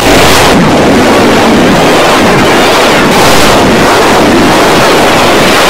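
Very loud, harsh noise with no clear tones, like heavily distorted digital audio, starting abruptly.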